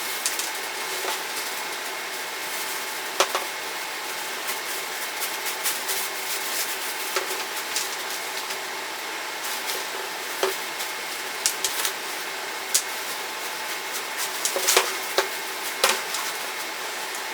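Light clicks and taps scattered over a steady hiss: handling noise from gear being moved and packed away.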